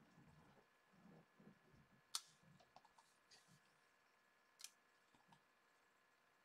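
Near silence with faint rustling and two light clicks, about two seconds and four and a half seconds in, as a clear acrylic stamp block is pressed onto card stock and lifted off while stamping.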